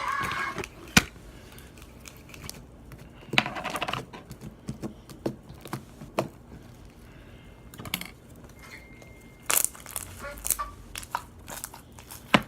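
Sticky homemade slime being kneaded and pulled apart by hand: irregular sticky crackles, pops and small clicks with short gaps between them.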